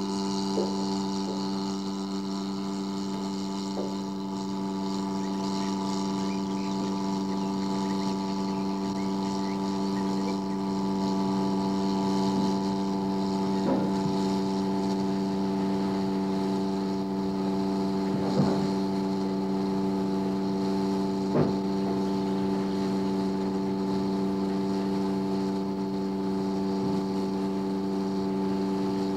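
A steady drone of several held tones at once, even in level throughout. A few faint clicks sound over it, the clearest about halfway through and twice more a few seconds later.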